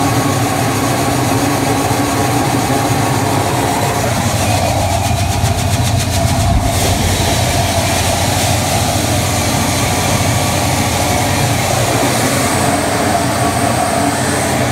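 Grain auger running under load, conveying canola seed from its hopper up into a grain trailer, with a steady engine drone. A fast rattle comes briefly about six seconds in.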